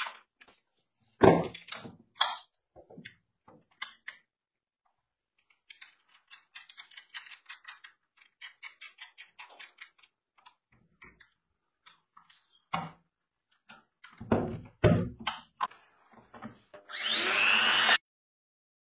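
Clunks and clinks of a metal bracket and bolt being handled against an old car alternator, with a run of small rapid clicks in the middle. Near the end a cordless drill whirs up for about a second, driving a screw into the bracket, and cuts off abruptly.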